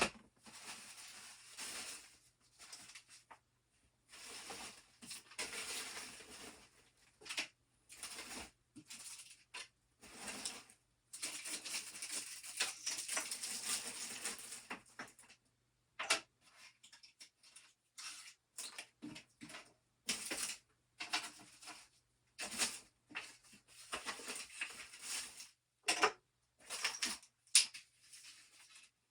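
Irregular rustling and scraping with scattered sharp knocks and clicks: things being handled and moved by hand.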